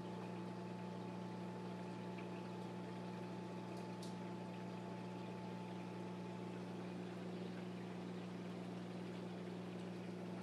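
Reef aquarium's pumps and water circulation running: a steady low hum under a hiss of moving water, with a brief faint tick about four seconds in.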